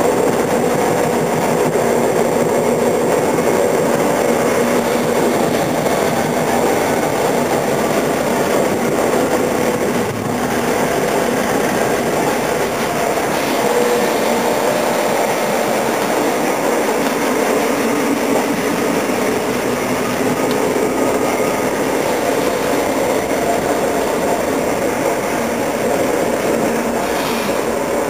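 Passenger train running at speed, heard from inside the carriage: a steady running noise of the wheels on the rails.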